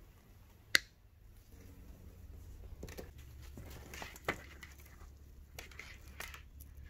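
A single sharp snap as diagonal cutters snip through a plastic cable tie on a bundle of braided wiring, followed a couple of seconds later by soft rustling and a few light clicks as the sleeved cables and their connectors are handled and laid out.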